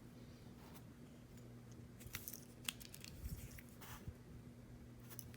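Faint, scattered scrapes and crinkles of packing tape on a cardboard package being picked at and pried with a pencil.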